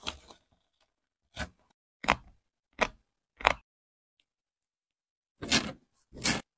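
A utility knife slicing through the padded collar and upper of a Nike Zoom GT Cut 2 basketball shoe, with foam and fabric tearing as they are pulled apart. The sound comes as about six short, separate strokes with silence between them.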